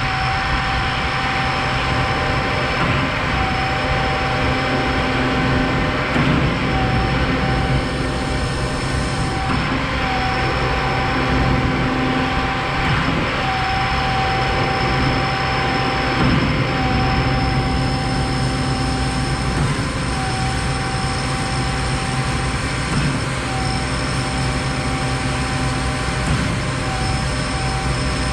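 Concord 40-metre Z-boom concrete pump truck running hard while pumping concrete: a steady loud engine drone with a whine that breaks off briefly every three seconds or so.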